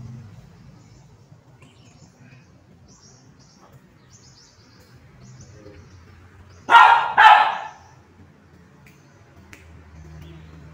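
A dog barks twice in quick succession, about two-thirds of the way in.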